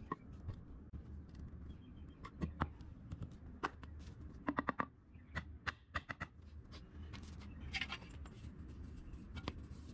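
A hammer lightly tapping a wooden fence post seated in a metal post anchor: scattered single knocks, with a quick run of four about halfway through.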